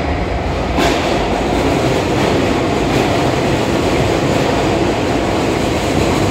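Keisei AE-series Skyliner electric train pulling into an underground station, its cars running past close by with a steady loud rumble of wheels and rushing air. The sound jumps up suddenly about a second in, as the front of the train passes.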